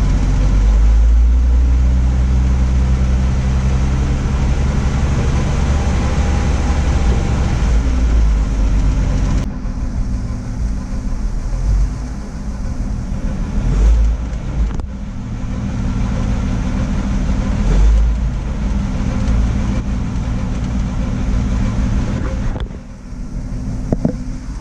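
Ford F100 pickup's engine running, its pitch shifting and its level dropping abruptly a few times. It has an intermittent engine knock that the owner still hears.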